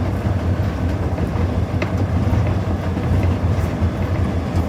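Cab interior of an EMD SD40-2 diesel-electric locomotive under way: the 16-cylinder two-stroke EMD 645 prime mover drones steadily along with rail and wheel noise. A few faint clicks are heard about two seconds in and again past three and a half seconds.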